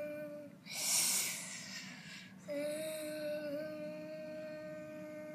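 A child humming a steady, droning note while playing with a toy garbage truck, broken about a second in by a short breathy hiss, then the steady hum picks up again and holds.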